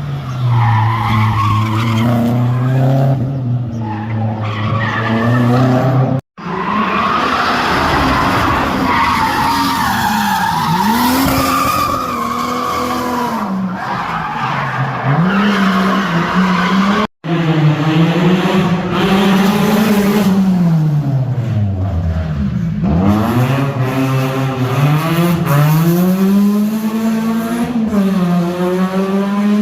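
Car engine revving hard, its pitch repeatedly sweeping up and down, with tyres squealing and skidding. The sound drops out twice for a moment.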